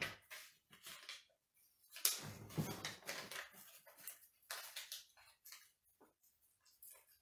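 A folded paper slip being unfolded by hand: faint, irregular crinkling and rustling of paper, with a longer, louder rustle about two seconds in.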